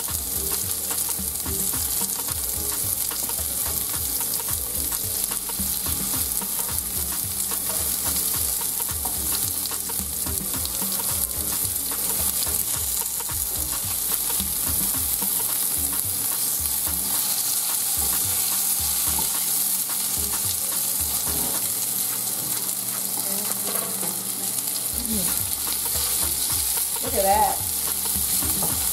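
Vegan crispy chicken pieces, bell pepper and onion sizzling in grapeseed oil in a nonstick frying pan, stirred with a wooden spatula that scrapes and knocks against the pan. A steady frying hiss, with a brief louder sound near the end.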